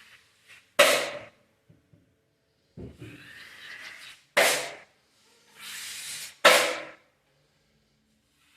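Drywall tools being worked: three sharp knocks, each with a short ring, the second and third each following about a second of scraping.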